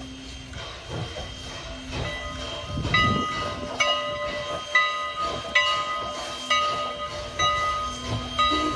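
Canadian National 89, a 2-6-0 steam locomotive, working past with a train, its exhaust chuffing. From about three seconds in, a bell rings steadily, about one strike a second.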